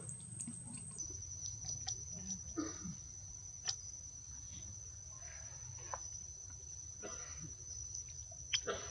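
Steady high-pitched insect buzz from the forest undergrowth, stepping down slightly in pitch about a second in, with faint scattered clicks and rustles and a couple of short sharper sounds near the end.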